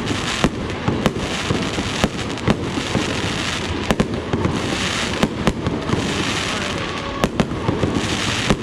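Fireworks display going off: a string of sharp bangs at irregular intervals, about a dozen in all and sometimes two in quick succession, with stretches of crackling in between.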